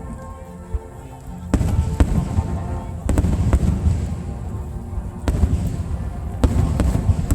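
Aerial fireworks shells bursting: four loud booms, each followed by rumbling and crackle, with music playing underneath.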